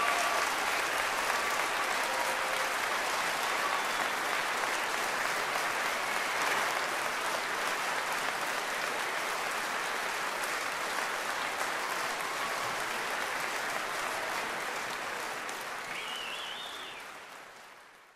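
Large audience clapping in a hall, a dense steady applause that fades out near the end.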